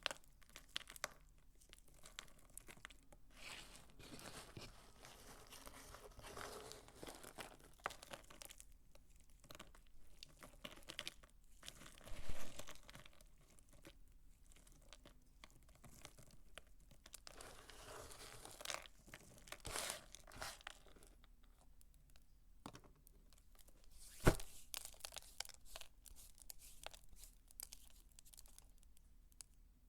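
Dry soap crunching and crackling in irregular bursts of small clicks as it is worked by hand. There is a louder burst about twelve seconds in and a single sharp knock about twenty-four seconds in.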